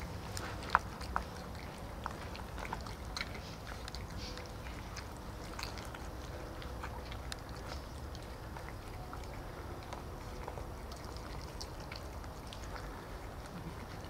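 Two cats, a ginger and a grey tabby, chewing wet cat food from a plastic tub: scattered soft clicks and smacks of chewing throughout, with one sharper click just under a second in.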